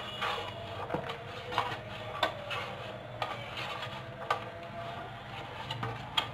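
Light, scattered knocks and clicks of a plastic container being tapped and shaken to empty grated carrot into a plastic bowl, about one knock a second.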